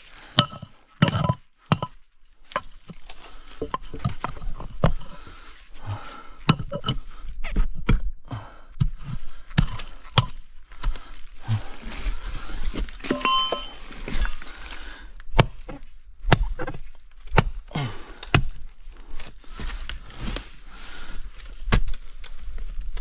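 Small pickaxe chopping at tree roots around a rock: irregular strikes, roughly one or two a second, one of them with a short metallic clink about two-thirds of the way through.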